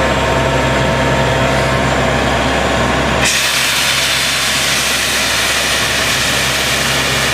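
Truck-mounted borewell drilling rig running steadily with a low engine hum. About three seconds in, the sound changes suddenly: the low hum drops away and a loud, even hiss of rushing air takes over.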